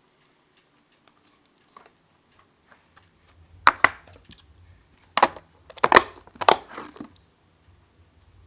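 Toy slime or a fidget toy being squeezed and handled close to the microphone. Faint scattered ticks come first; then, from about three and a half seconds in, five or six loud, sharp crackling pops come in quick clusters.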